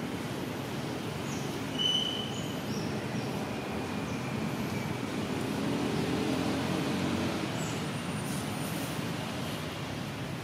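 Steady low rumble of road traffic, with an engine hum swelling and fading in the middle, and a few faint high chirps.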